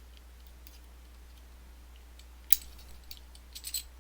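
Small metal parts of a disassembled Abloy Classic lock clicking as they are handled and set down: one sharp click about two and a half seconds in, then a few lighter clicks.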